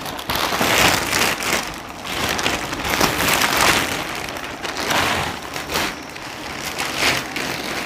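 Plastic wrapping of vacuum-packed pillows crinkling and rustling as the packs are opened and handled and a pillow is pulled out, in irregular swells.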